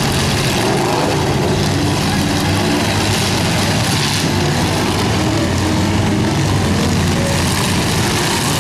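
Several demolition derby cars' engines running loud and steady together, overlapping so no single engine stands out.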